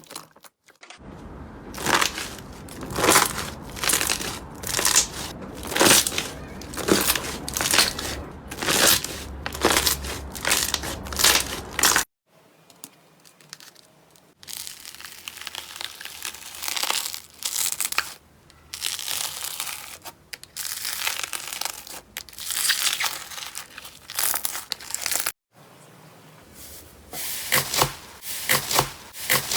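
Slime being squeezed and pressed by hand close to the microphone, giving repeated crackling, crinkling strokes, in several short clips with sudden breaks between them.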